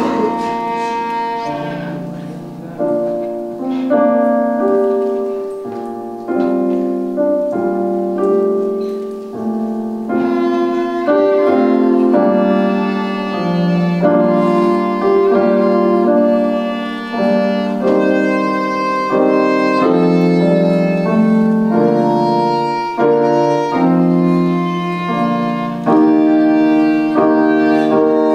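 A violin playing a melody of sustained bowed notes, accompanied by a Roland digital piano whose chords are struck about once a second and fade between strokes.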